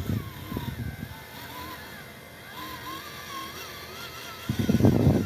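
Electric drive motor and gearbox of a radio-controlled Nissan dump truck model whining, its pitch wavering with the throttle as it drives loaded over a sandy track. It turns louder and rougher near the end.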